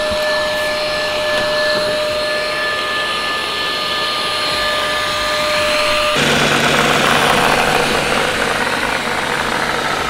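Robot vacuum cleaners running. First the Cecotec Conga 5490: a steady whir with a few thin high whines over it. About six seconds in it switches to the Roborock S6: a somewhat louder, denser whir with a low steady hum.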